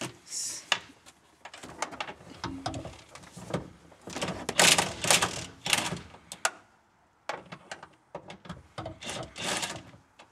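Cordless impact driver hammering in several short bursts on a strut top-mount nut, with the clatter of the socket and tool between bursts.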